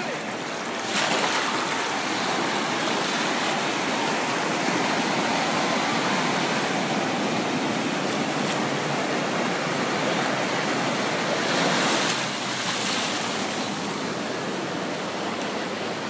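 Sea surf washing through shallow water, rising as a wave rushes in about a second in and again around twelve seconds in.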